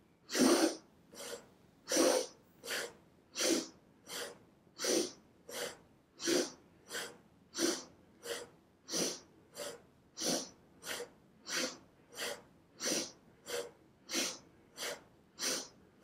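A person breathing fast and rhythmically through the nose, about three breaths every two seconds, with stronger and softer breaths alternating: an inhale on each twist to the left and an exhale on each twist to the right in a Kundalini dynamic spinal twist.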